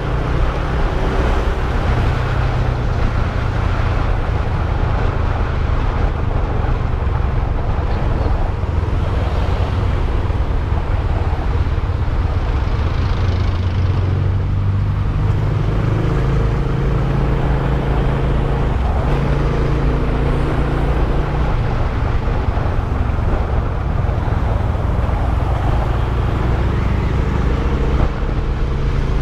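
Modenas GT128 motorcycle engine running under way in traffic, with road and wind noise. The engine note steps up and down a few times as the throttle changes.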